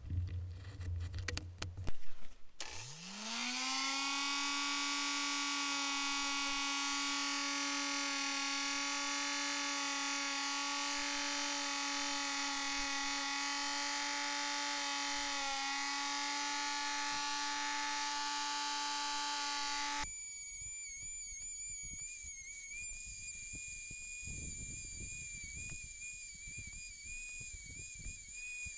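Handheld rotary tool with a sanding drum spinning up about three seconds in and running steadily while it sands the edges of a glued leather wallet. About twenty seconds in, the sound changes abruptly to a higher, thinner steady whine as the tool keeps running. A few light clicks of knife and ruler handling come before it starts.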